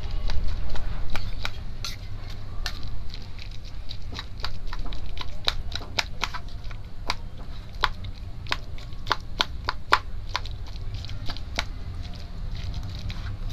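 A slotted steel spoon clicking and scraping against a stainless steel bowl while it mashes boiled potato into boiled chickpeas, in quick irregular clicks. A low steady hum runs underneath.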